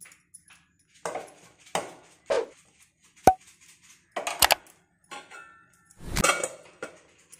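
A metal spoon scraping and knocking against an aluminium kadai of potato stuffing, in a string of separate clatters. A sharp ringing ping comes a little past three seconds, and the heaviest knock near the end.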